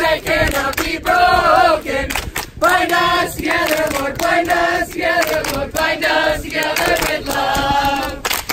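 A mixed group of men's and women's voices singing a worship song together in phrases of a second or so.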